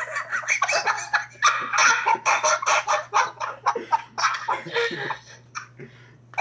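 People laughing uncontrollably in breathy, giggling bursts that die down near the end, over a steady low hum.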